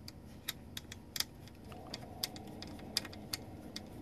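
Small screwdriver turning a machine bolt that is cutting its own threads into a fiberglass circuit board: a dozen or so irregular sharp little clicks and ticks of the blade in the bolt head.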